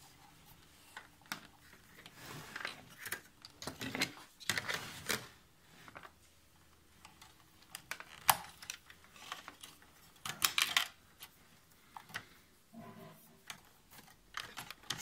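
Computer cables being handled and pushed about inside a metal mini-ITX PC case while they are rerouted: scattered rustles and small clicks of cable and plastic against the sheet-metal chassis, with a sharp click about eight seconds in and a burst of handling about ten seconds in.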